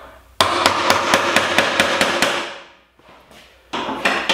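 Rapid hammer blows, about seven a second, driving a steel hoop up a wine barrel's staves to work the last hoop loose. One run of blows lasts about two seconds, then after a pause a second run starts near the end.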